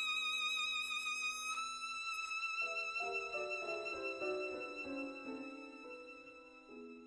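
Background music: a violin holds one long high note with vibrato while lower accompanying notes step downward from about two and a half seconds in. The music fades out toward the end.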